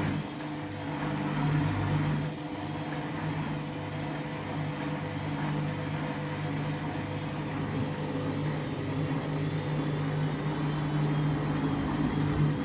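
Candy washing machine on a spin with a half load of bedding: a steady motor hum with a low pulsing that repeats about twice a second as the drum turns. The load is slightly out of balance.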